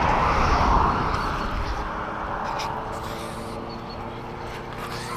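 A passing vehicle rushes by and fades over the first couple of seconds, leaving a steady low engine hum.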